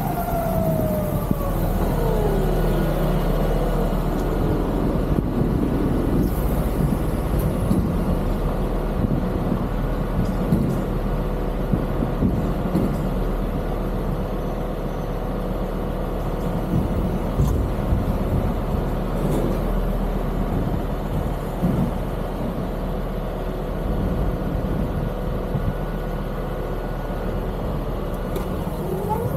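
Ovaobike MCR-M electric motorcycle's motor whine falling in pitch over the first few seconds as the bike slows to a stop. A long stretch of steady low rumble from a truck idling alongside follows. Near the end the motor whine rises again as the bike pulls away.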